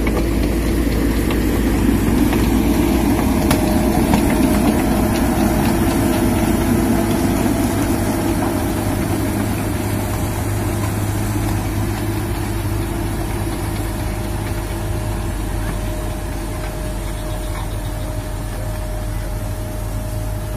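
Heavy diesel engines of a Komatsu PC200 excavator and the loaded dump truck it is shoving through deep mud, running steadily under load. Loudest in the first few seconds, then easing off gradually as the machines move away.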